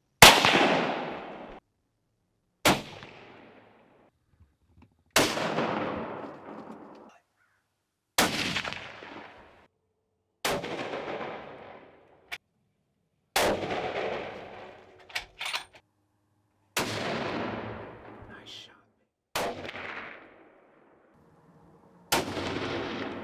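Nine rifle shots fired a few seconds apart, each a sharp crack followed by a long echo that dies away over a second or two. Several echoes are cut off suddenly.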